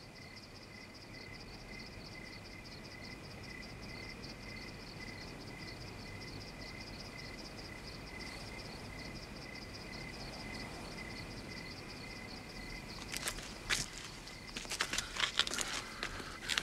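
Outdoor ambience of a steady chorus of rapidly pulsing chirps, typical of crickets, at two pitches. Near the end, irregular clicks and rustles of footsteps start and get louder.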